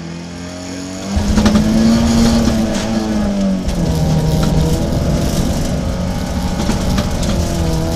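Rally car launching from the start line of a gravel special stage. The engine is held at steady revs, then about a second in it pulls away hard and revs up. It shifts up once, so the pitch drops, then climbs again. Stones tick against the car as it accelerates over the gravel.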